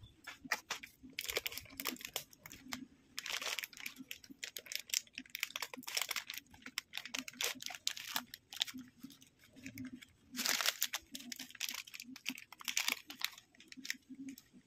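Plastic spaghetti sauce pouch crinkling and tearing in irregular crackles as a knife is pushed through it to cut it open.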